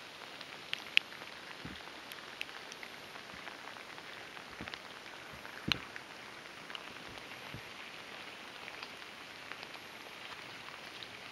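Steady rain falling on lake water, with scattered sharp ticks of nearby drops; the two loudest ticks come about a second in and about halfway through.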